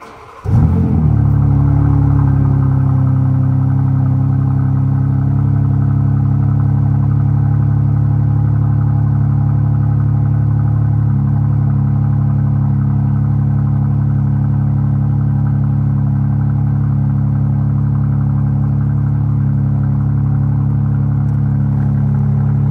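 BMW G82 M4's twin-turbo S58 inline-six cold-starting through its stock exhaust with the valves open: a brief crank, the engine catches with a loud flare about half a second in, then settles into a steady cold idle.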